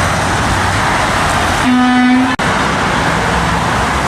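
Steady highway traffic passing below, with one steady car horn toot about half a second long near the middle; the sound drops out for an instant just after it.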